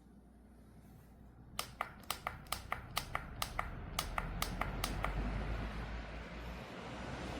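Air Choice 12-inch rechargeable fan: its control button is pressed quickly about sixteen times, each press giving a short click, then the rush of air builds as the fan's blades speed up.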